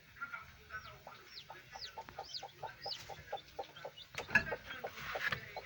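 Newly hatched chicks peeping in short, high, falling calls over a hen's steady rapid clucking, about four clucks a second. A sharp knock about four seconds in is the loudest sound.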